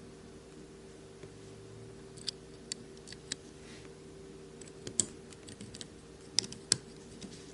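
Scattered sharp light clicks and taps of small metal knife parts and tools being handled while a folding knife is put back together, the loudest clicks about halfway through and near the end.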